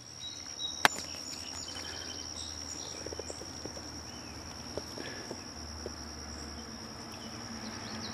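An insect trilling in one steady, unbroken high tone, with a single sharp click about a second in.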